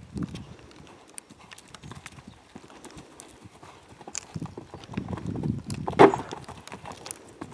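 Hoofbeats of a cantering horse on a soft wood-chip and grass surface, with the heaviest thud about six seconds in as it jumps the bank.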